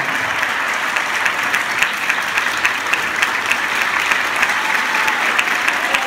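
Audience applauding: a dense, steady patter of many hands clapping, with a short whoop about five seconds in.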